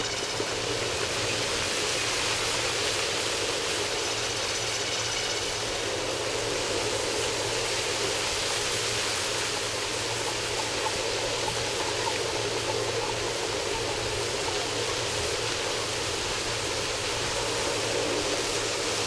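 Pavement fountain's many water jets spraying up from the paving and splashing back down, a steady rushing hiss.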